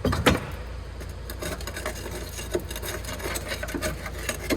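Hand tools and metal parts being handled during brake work on a van: a knock at the start, then a run of light irregular clicks and scraping.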